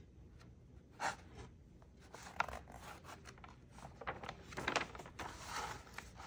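Paper of a picture book rustling and sliding as a page is turned by hand. There are a couple of brief scrapes, then a longer rustle of the page swinging over near the end.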